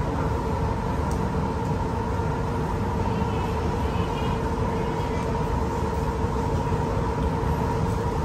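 Steady mechanical hum of restaurant background noise, a constant drone with two even tones, and a faint click about a second in.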